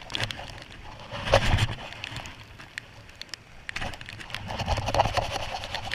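Gusts of wind buffeting the microphone, coming and going twice, over waves washing onto a pebble shore, with a scatter of small clicks from the angler handling his rod and spinning reel.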